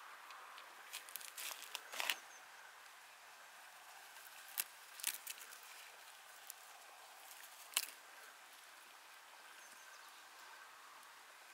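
Young roe buck browsing, tearing and crunching leaves in its mouth: short crisp crackles in three small clusters over a faint steady hiss.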